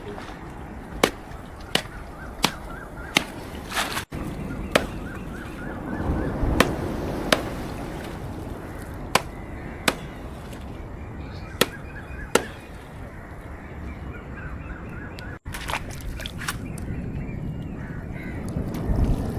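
Sharp, hard blows struck over and over, often in pairs about two-thirds of a second apart: wali roots being beaten to crush out the juice used to stun fish. The blows stop for a couple of seconds now and then, and the sound breaks off abruptly twice.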